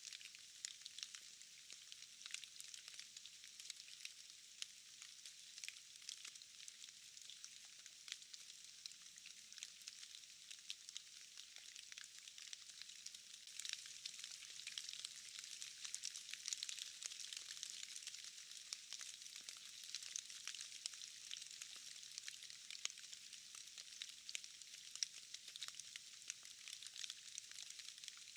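Steady rain: a soft hiss of falling drops with many small ticks of individual drops, growing a little heavier about halfway through.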